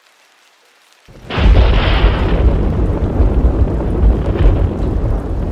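Thunder sound effect: a sudden crack about a second in that runs on as a loud, deep rumble.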